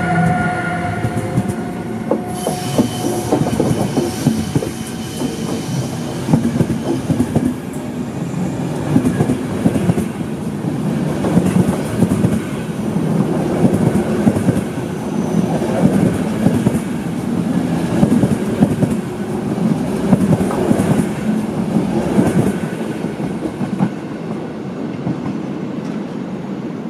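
An electric-hauled passenger train rolls past close by. The wheels click and knock over rail joints, with some wheel squeal. A steady electric whine from the passing locomotive fades out in the first two seconds, and the rolling noise eases off near the end.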